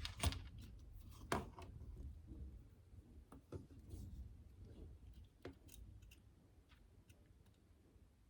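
Scattered clicks and light knocks of small tools and parts being handled during an electronics repair. Two sharper clicks come in the first second and a half, followed by softer, sparser ticks.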